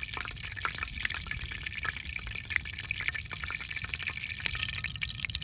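Cooking oil heating in a pan over a wood fire, sizzling with a dense, irregular crackle of small pops.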